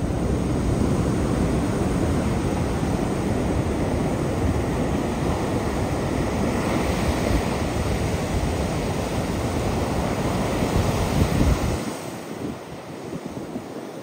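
Heavy storm-driven surf breaking and washing up the beach, with wind buffeting the microphone as a low rumble. About twelve seconds in, the sound drops noticeably quieter.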